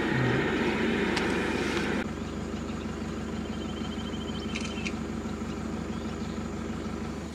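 Vehicle engine idling with a steady low hum that eases a little about two seconds in. About halfway through comes a brief, high, fast-ticking rattling trill.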